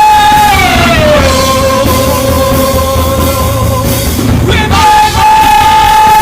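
Loud worship music carried by one long held note. The note slides down about a second in, holds at the lower pitch, and jumps back up to its first pitch near the end, over a low rumbling accompaniment.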